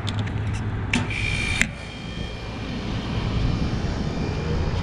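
Refrigeration condensing unit of a beer keg cooler starting up with its newly replaced compressor: a few clicks, a brief hissing burst with a high whistle that cuts off abruptly, then a steady motor hum that grows louder. The system is still short of refrigerant charge.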